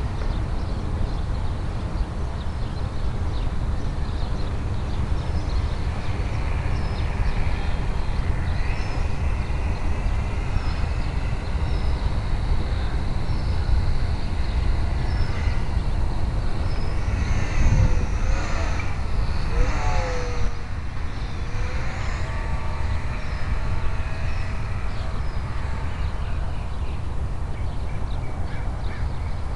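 Electric RC airplane with a geared Himax brushless motor and 10x7 propeller, whining as it flies aerobatics overhead, the pitch sweeping up and down several times around the middle as it passes and changes throttle. A steady low rumble lies under it.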